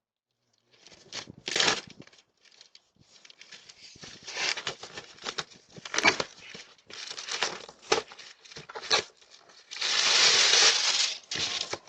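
Parcel packaging rustling, crinkling and tearing as someone handles and rummages through delivered packages. It comes in irregular bursts, the longest and loudest near the end.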